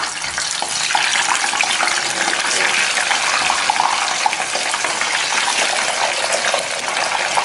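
Tilapia pieces deep-frying in hot oil: a dense, steady sizzle full of fine crackles, growing fuller about a second in as more pieces go into the oil.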